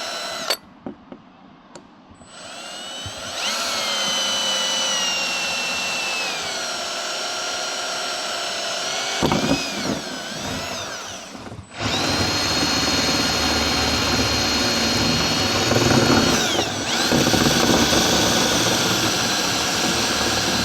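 Electric drill running a side-cutting drill bit through aluminium sheet. After a brief blip, the drill runs with a whine that sinks in pitch, stops briefly past the middle, then starts again with a steady high whine.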